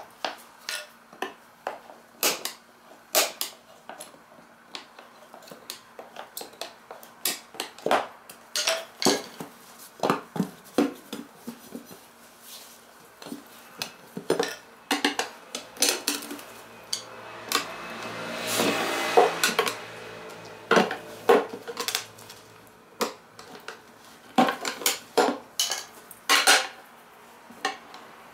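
Metal tyre levers clinking and scraping against a Yamaha Jog Poche scooter's wheel rim as the tyre is levered off by hand. The clicks come in an irregular run, with a longer rubbing scrape about two-thirds of the way through.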